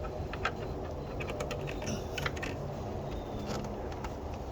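Scattered light clicks and rattles of plastic and metal parts being handled on a Flex 24V 8-1/4-inch portable table saw as its onboard tool storage is worked. The sharpest clicks come about half a second in and a little after two seconds in.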